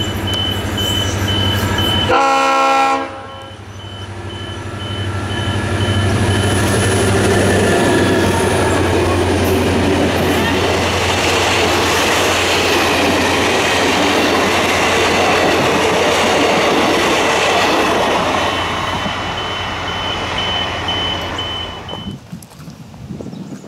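Diesel-hauled heritage passenger train passing close, led by a Victorian Railways C class diesel-electric locomotive. The engines hum as it approaches, a horn sounds for about a second around two seconds in, then the carriages roll past with wheel and rail noise for about fifteen seconds before fading near the end.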